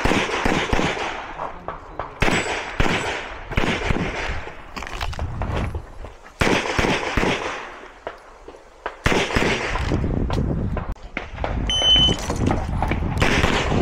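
Gunshots fired in quick strings with short pauses between: a competitor shooting a practical-shooting (IPSC) course of fire after the start signal. A short high beep sounds near the end.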